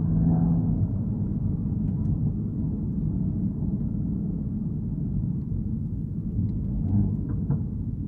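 Mk8 VW Golf GTI's turbocharged 2.0-litre four-cylinder and exhaust heard from inside the cabin while cruising at low speed: a steady low drone with road rumble.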